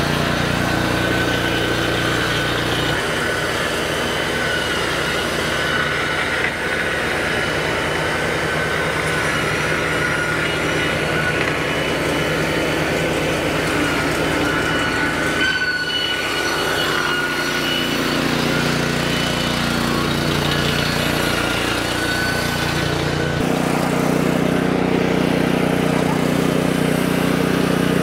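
Wood-Mizer EG100 board edger running with its Kohler gas engine, its two saw blades edging boards as they are fed through. A steady high whine sits over the engine, whose low note changes about three seconds in and again near the end.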